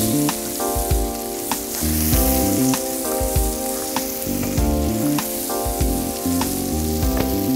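Bread frying in butter on a hot griddle, sizzling steadily with scattered small crackles and pops.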